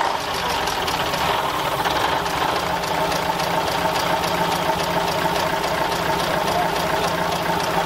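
Scania 141's V8 diesel engine idling steadily, heard close up in the open engine bay.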